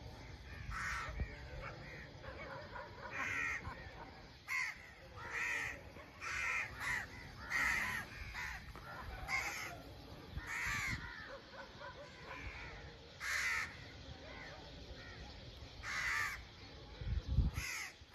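A flock of crows cawing from a tree: short harsh caws about once a second, several birds calling over one another. A low thump near the end.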